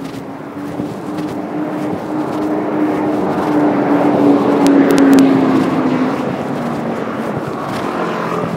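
A motor vehicle passing close by on the road. Its noise swells to a peak about five seconds in and then fades, under a steady hum that slowly drops in pitch.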